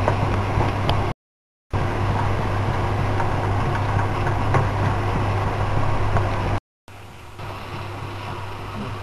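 Masala frying in a pan and being stirred with a wooden spatula, with a few light scrapes against the pan, over a steady low hum. The sound cuts out twice, briefly, about a second in and near the end.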